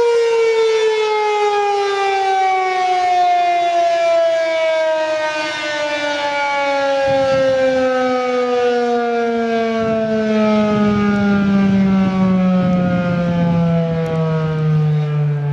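Federal Signal 2001-SRN electromechanical siren winding down, one loud tone falling steadily in pitch as the rotor coasts to a stop at the end of its test run.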